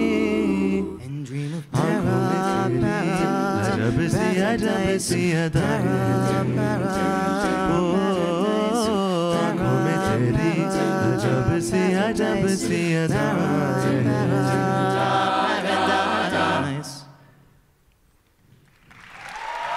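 A cappella group singing in layered harmony over beatboxed percussion clicks. The song cuts off about three seconds before the end, and after a brief hush audience applause begins to rise.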